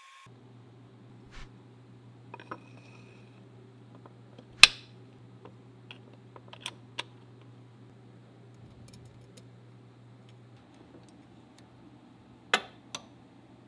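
Metal SKS rifle parts being handled and set down on a wooden workbench: scattered clicks and knocks, the loudest a little under five seconds in and two more near the end, over a low steady hum.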